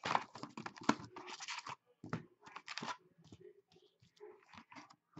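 A cardboard trading-card box being torn open, with a dense run of tearing and scratching over the first two seconds. Then scattered rustles and light knocks as the foil card packs are slid out and handled.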